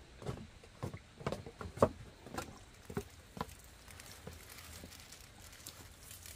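A run of light knocks and footsteps as a plastic watering can is carried to the plants, the loudest about two seconds in. Then water sprinkles faintly from the can's rose onto the leaves.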